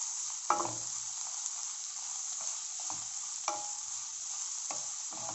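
Chopped onions sizzling in hot oil in a kadhai while being lightly sautéed, with a steady hiss. A wooden spatula stirs them, scraping and knocking against the pan a few times.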